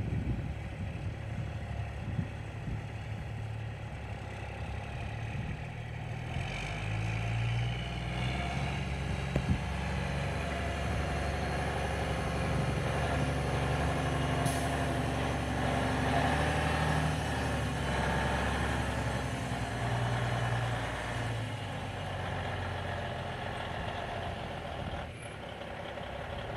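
Semi-truck diesel engine idling, coming up about six seconds in, strongest through the middle and dropping away after about twenty seconds, over a steady background hiss.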